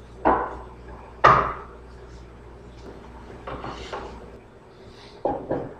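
Hand tool working a piece of wood on the bench: a few short, sharp wooden knocks, the loudest about a second in and two quick ones near the end, with a softer scraping stroke in between, as a little more is trimmed from the wood.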